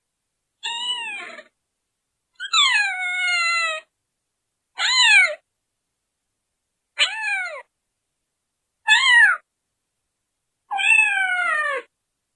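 A queen cat in labour meowing six times, about two seconds apart, each call falling in pitch; the second and the last are drawn out longer.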